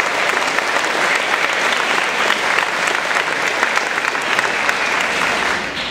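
Audience applauding: many hands clapping together in a dense, steady patter that dies down near the end.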